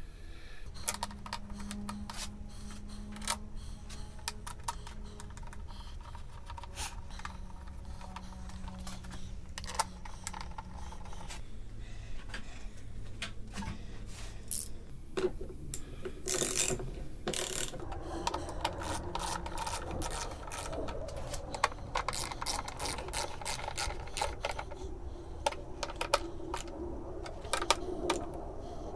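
Hand ratchet wrench clicking in short, irregular runs as bolts on an engine's timing belt cover are turned, with knocks and clinks of metal parts being handled between them.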